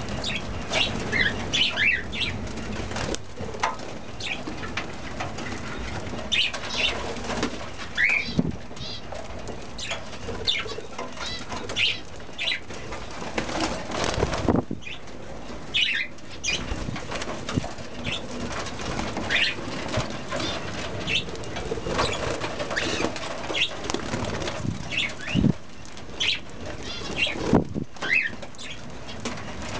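A flock of budgerigars and cockatiels chattering with many short chirps, with wings fluttering now and then.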